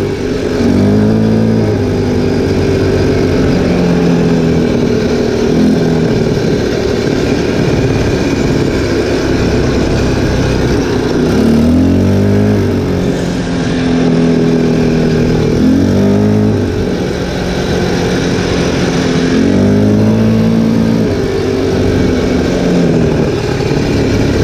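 ATV engine running under way on a gravel track. Its pitch rises and falls with the throttle several times, over a steady rushing noise.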